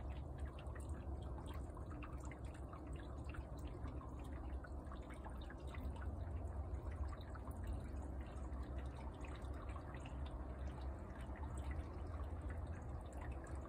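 Falling snow ticking and dripping: a dense, irregular patter of small ticks over a steady low rumble.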